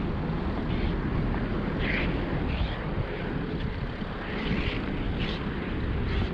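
Wind buffeting the microphone in a steady, gusting low rumble, over the engine of a high-roof campervan driving slowly across a gravel car park.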